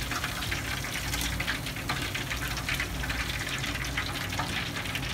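Hot oil draining and dripping off a freshly deep-fried turkey in its wire basket back into the pot of frying oil, sizzling with steady fine crackles over a low hum.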